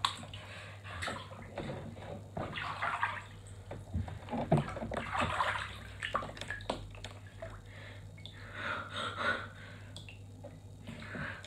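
Water sloshing in a bathtub of ice water as a person lowers himself down into it, in a few separate swishes with small drips and knocks.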